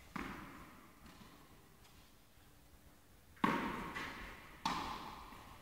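Tennis ball impacts in an indoor tennis hall: three sharp knocks, one just after the start and two about a second apart near the end. Each one echoes briefly off the hall.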